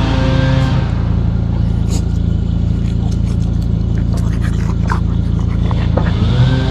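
An engine running steadily at a constant speed, with scattered light clicks and ticks over it. Music is heard in the first second and comes back near the end.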